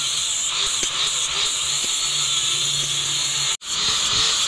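Electric angle grinder with an abrasive disc running at speed, grinding down the wooden handle scales of a knife; its high whine wavers as the disc bites and eases off. The sound cuts out for a split second about three and a half seconds in, then the grinder is heard again.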